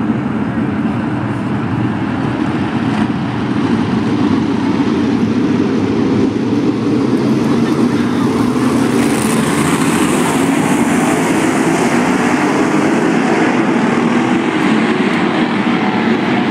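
Sprint car V8 engines running at race speed in a main event: a loud, steady drone from the field of cars, getting a little louder about four seconds in.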